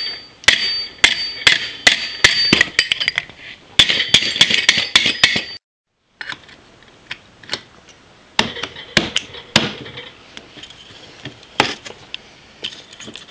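Hammer blows on a slit metal pipe as it is spread open to take ball bearings: sharp ringing strikes about two a second, then, after a short break, more scattered blows.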